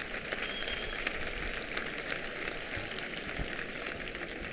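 Crowd applauding: a steady round of clapping from many people.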